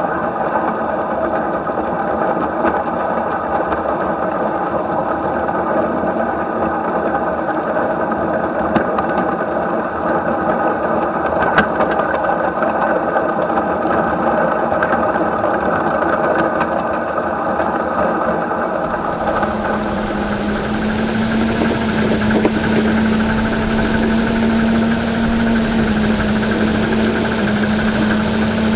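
7¼-inch-gauge miniature live steam train running along the track: a steady mechanical rumble and clatter of wheels and running gear. About two-thirds of the way through, the sound changes suddenly to a steady hiss with a low, even hum.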